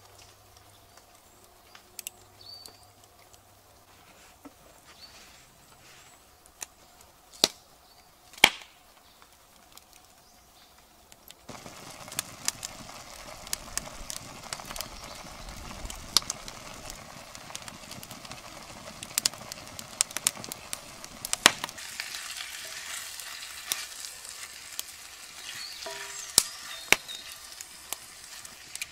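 Bacon sizzling and spitting in a cast-iron frying pan over a wood fire. The sizzle starts suddenly about eleven seconds in and goes on steadily with many small crackles. Before it there is a quieter stretch with a few sharp knocks.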